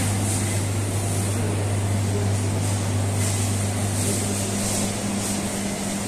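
Steady low mains hum from shop refrigeration, the display freezers' compressors and fans, over a constant hiss of room noise.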